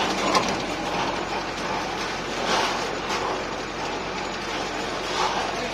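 Tractor-driven self-loading pan concrete mixer running, a steady mechanical rattle and grind.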